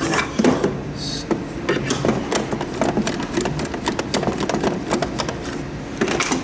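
Irregular clicks, taps and knocks of a humidifier being handled and taken apart by hand.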